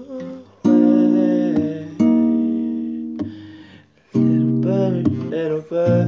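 Acoustic guitar strummed slowly, a chord struck about every one and a half seconds and left to ring and fade, with a man's wordless sung notes wavering over it between the chords.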